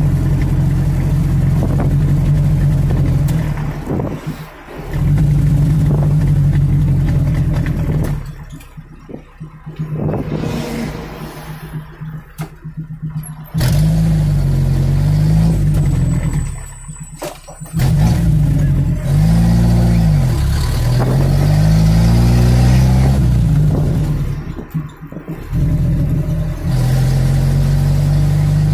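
1973 Chevrolet Opala engine heard from inside the cabin while driving, its note rising and falling as it pulls through the gears. It drops away briefly several times between pulls as the throttle is lifted.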